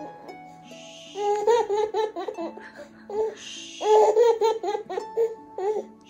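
A baby of about nine months laughing in two bouts of rapid, breathy giggles, the first about a second in and the second about four seconds in, with soft background music under them.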